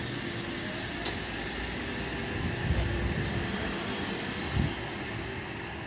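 Four-car Oscar (H-set) electric multiple unit pulling away from the platform: a steady rumble with a hum and a faint rising whine, fading over the first half. A sharp click about a second in and low thuds near the middle.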